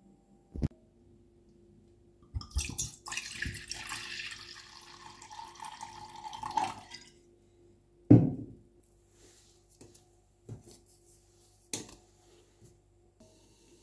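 White mulled wine poured from a glass bottle into a stainless steel saucepan: a splashing pour of about four seconds whose pitch rises toward its end. A loud thump follows, then a few light taps as cinnamon sticks are dropped into the pan.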